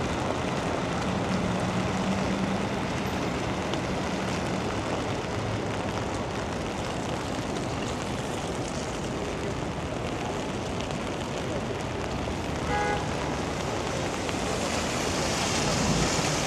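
Rainy city street: a steady hiss of rain and of traffic on wet pavement. About three-quarters of the way through there is one short beep. Near the end the hiss swells, as with a vehicle passing on the wet road.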